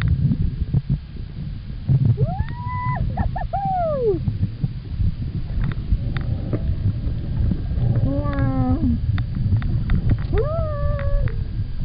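Humpback whale song heard underwater: a series of arching, rising-and-falling moans, with one long whoop about two seconds in, a stepped run of falling notes about eight seconds in, and another arching call near the end. A steady low underwater rumble and scattered clicks run beneath the calls.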